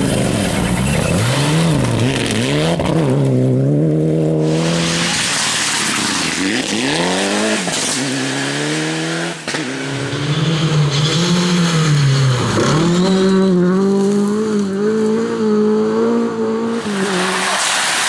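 Rally car engines at full throttle on a gravel stage, one car after another, revving up and dropping back again and again through quick gear changes, with gravel hissing and spraying under the tyres. In the second half a Lada rally car's engine holds a high, fairly steady rev as it slides past.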